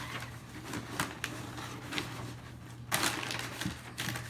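Packaging being handled as a box is worked out of its see-through plastic wrapper: scattered clicks and crinkles, with a louder rustle about three seconds in. A steady low hum runs underneath.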